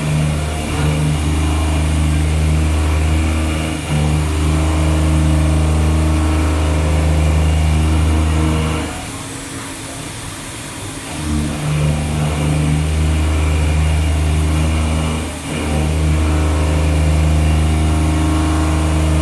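CNC milling machine running a pocketing cut: a loud, steady machine hum that eases off for about two seconds around the middle, then comes back, with a brief dip a few seconds later.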